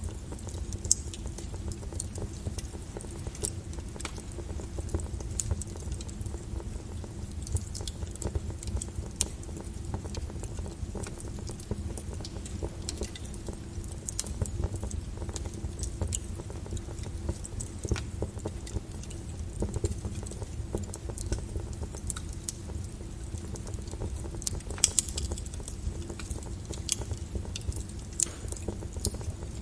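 Small wood fire crackling in a fireplace: irregular sharp pops and snaps over the low, steady rumble of the flame, with a louder snap about a second in and another late on.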